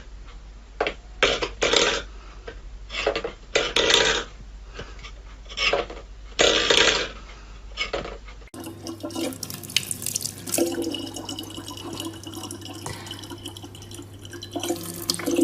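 Water from a tap splashing in a sink or basin: irregular splashes for the first half, then a steadier trickle with a low hum after a sudden change about halfway through.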